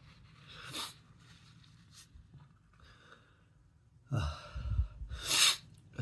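A congested person with a cold breathes and sniffs faintly, then about four seconds in takes a couple of catching breaths and lets out a sharp, loud sneeze.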